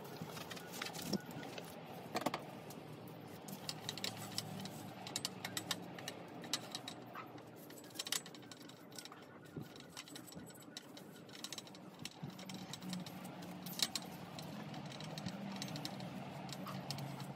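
Quick, scattered clicks and light rattles over a faint low hum.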